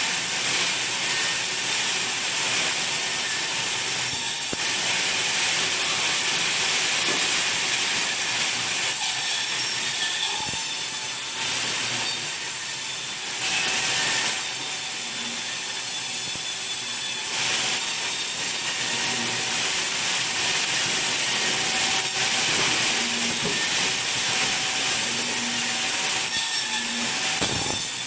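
Sawmill saw cutting through wood: a continuous, loud, hissing rasp with a faint steady whine, easing briefly a few times.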